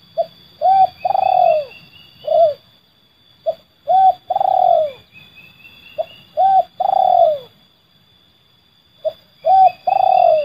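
Spotted dove (terkukur) cooing in the 'seladang gantung' call type. Four phrases come about two and a half seconds apart, each a short note, a quick coo and a long falling coo.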